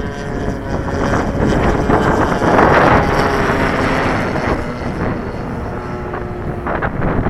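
Wind buffeting the microphone, gusting loudest about halfway through, with the faint steady drone of a radio-controlled model airplane's engine underneath.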